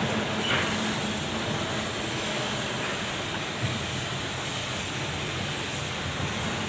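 Steady rushing background noise with a faint low hum, and a single light knock about three and a half seconds in.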